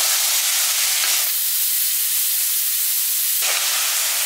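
Green peas, soya chunks and onion-tomato masala sautéing in oil in an aluminium pressure cooker while being stirred with a steel ladle: a steady sizzling hiss. The deeper part of the sizzle drops away for about two seconds in the middle.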